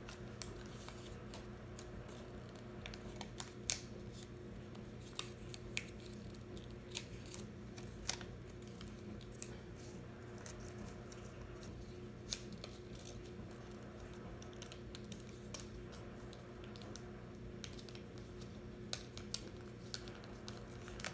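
Origami paper being folded and creased by hand: scattered soft crinkles and crisp little clicks as the sheet is bent and pressed, over a faint steady hum.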